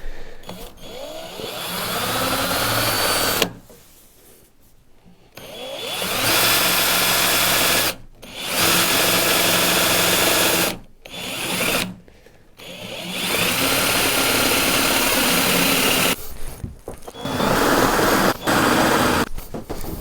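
Power drill boring a hole into a door for the latch, running in repeated stretches of a few seconds with brief pauses between them.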